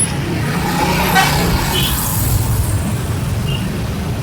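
Steady low rumble of a bus engine with road traffic noise.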